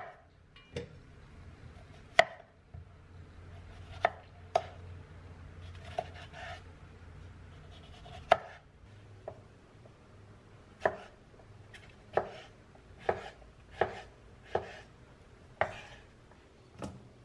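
Knife chopping on a cutting board: slow, uneven single chops, roughly one a second.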